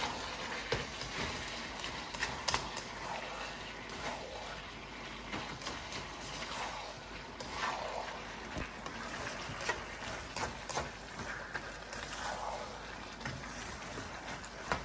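Plastic spatula stirring and tossing a beef and capsicum stir-fry in thickened sauce in a non-stick wok: soft swishing and wet sloshing, with scattered clicks of the spatula against the pan.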